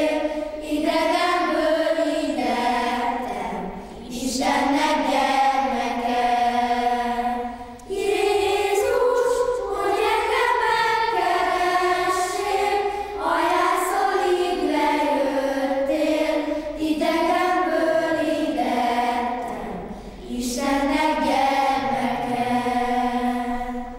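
Children's choir singing a Christmas song in Hungarian about Jesus's birth, in long phrases with short breaks about 4, 8 and 20 seconds in.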